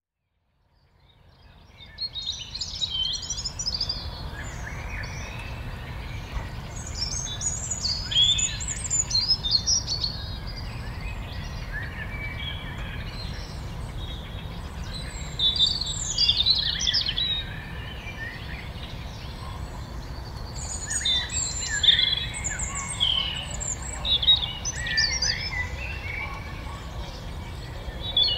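Rural dawn-chorus-style birdsong: several songbirds chirping and trilling over a steady low rumble. It fades in from silence over the first two seconds.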